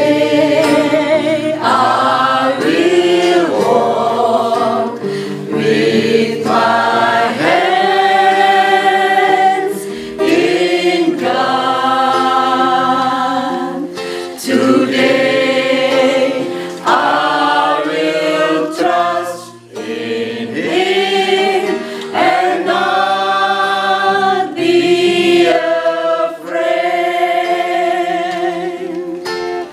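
A small mixed choir of women's and men's voices singing a Christian song together, with acoustic guitar accompaniment. The singing comes in phrases of a few seconds, with brief breaks between them.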